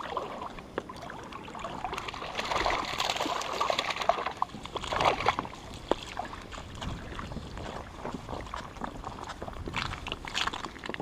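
Water sloshing and trickling, with scattered small knocks and clicks; it is loudest about five seconds in.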